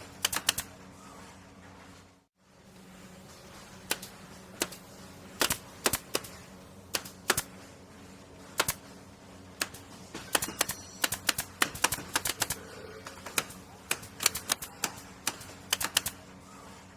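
Pneumatic air nailer firing nails: sharp, irregular shots, sometimes single and sometimes in quick runs, over a steady low hum. The recording breaks off briefly about two seconds in.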